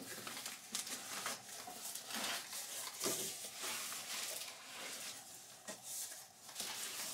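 Cardboard box flaps being pulled open and handled, with plastic packing material rustling and crinkling: irregular scratchy rustles with small knocks throughout.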